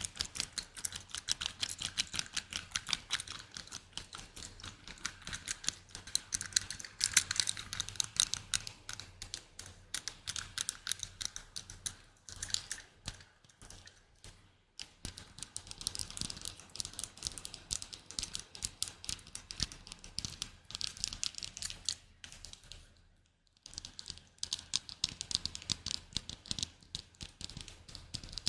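Rapid light tapping for ASMR: many quick taps a second in long runs, broken by a couple of short pauses.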